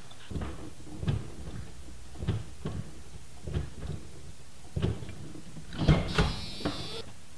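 Scattered light knocks and bumps of someone moving about in a vehicle, with a louder cluster of clunks and a brief rasp about six seconds in.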